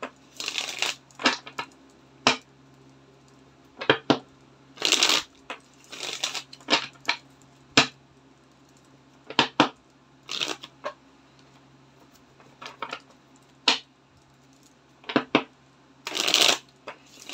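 A deck of tarot cards being shuffled by hand: irregular bursts of cards rustling and snapping against each other, with short pauses between. Near the end there is a longer burst as the split deck is riffled together.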